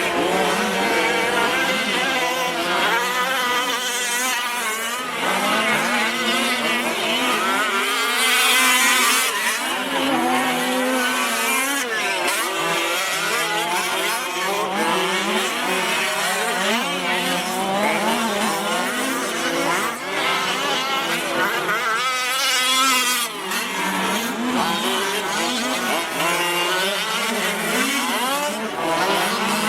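Several Losi 5ive-T large-scale RC trucks' small two-stroke gas engines revving hard in a race, their pitches overlapping and swinging up and down. There is a louder, hissier rush about eight seconds in and again about twenty-two seconds in.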